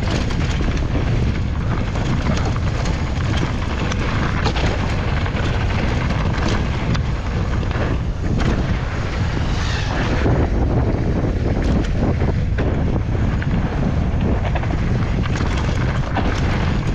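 Wind rushing over the microphone of a mountain bike descending a rough dirt trail, with frequent knocks and rattles from the bike jolting over the ground.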